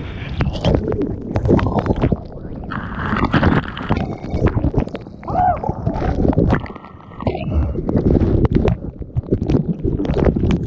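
A breaking wave and whitewater rushing and splashing over a camera at water level. The sound is uneven, swelling and dropping as the camera plunges through the foam, with a brief lull about seven seconds in.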